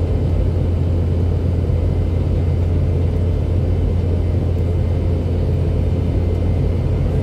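Steady low drone inside the cabin of a Boeing 717-200 in its climb after takeoff: the rear-mounted Rolls-Royce BR715 turbofan engines at climb power, with airflow over the fuselage.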